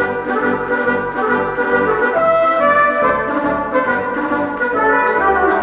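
Brass-led music, trumpets and trombones playing a melody over a regular beat.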